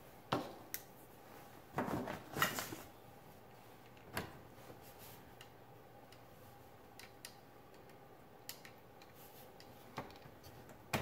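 Scattered sharp clicks and light knocks from small hand tools and a circuit board being handled, with a denser patch of clatter about two seconds in.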